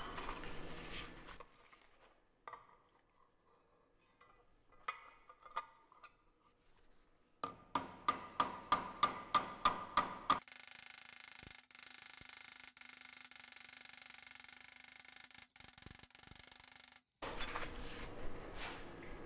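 A hammer dresses the welded seam of a sheet-metal chain guard held on a metal stake, straightening the weld. A few light taps lead into a run of about ten even, ringing metal strikes, roughly three a second, followed by a steady hum with a few faint clicks.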